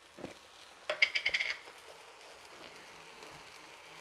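A metal spoon clinking against a spice container, a quick run of ringing taps about a second in, as turmeric powder is spooned out. Faint steady hiss follows.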